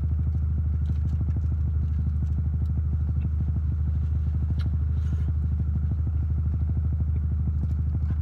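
Car engine idling, heard from inside the cabin: a steady low hum with a fast even pulse. A few faint crinkles and clicks of food wrappers sit above it.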